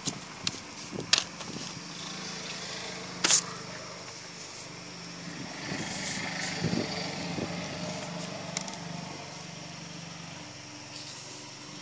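A motor running steadily with a low hum, with a few sharp clicks, the loudest about three seconds in.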